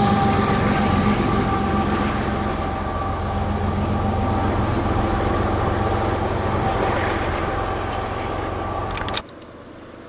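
BNSF diesel freight train rolling past and away: engine rumble and wheels on the rails, with a steady high ringing tone over it, slowly fading. About nine seconds in it cuts off suddenly, leaving a much quieter steady hiss.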